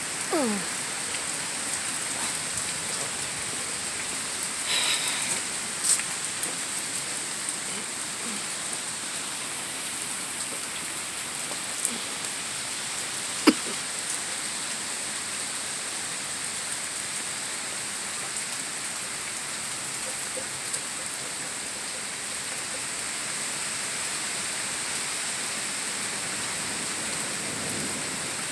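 Steady rain falling and splashing on surfaces, an even hiss, with a few sharp taps standing out, the loudest about halfway through.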